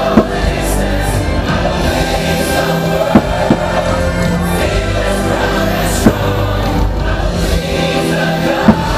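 Fireworks show soundtrack of music with a choir singing, over which firework shells go off in sharp bangs: one just after the start, two in quick succession about three seconds in, one about six seconds in and one near the end.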